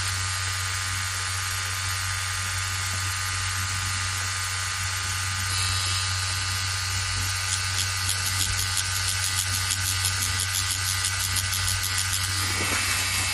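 Pen-style tattoo machine buzzing steadily, a low even hum, as a 3-round-liner needle whip-shades the skin.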